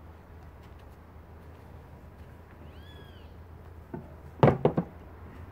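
A cat meows once, a single rising-and-falling call, about three seconds in. About a second later comes a short clatter of three or four sharp knocks, the loudest sound, as the small chainsaw lying on the ground is picked up.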